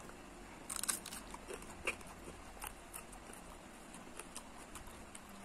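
A person biting into a raw chili pepper close to the microphone: a crisp crunch about a second in, then scattered small crunches and clicks as it is chewed.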